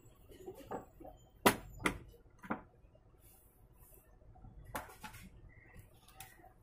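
A few sharp clicks and knocks of plastic and metal parts being handled as the LCD monitor's power supply board is opened up, the loudest two close together about a second and a half in, then scattered lighter taps.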